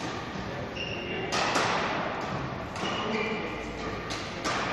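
Several sharp hits, five or so, each followed by a ringing echo of a large hall, with brief high squeaks between them.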